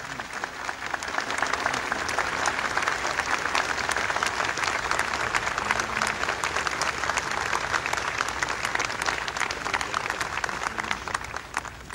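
Audience applauding, many hands clapping, building up over the first second or two and stopping fairly abruptly near the end.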